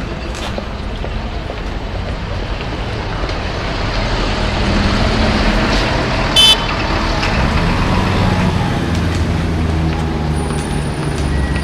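City street traffic: a steady wash of engines and tyres, with a heavier vehicle passing that swells and fades in the middle. About six seconds in there is a brief high-pitched beep.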